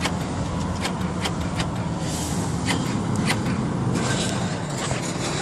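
2005 Chevy Malibu power door lock actuators clicking again and again at irregular intervals over a steady low hum, the locks cycling on their own: a fault the owner later traces to a bad door lock switch.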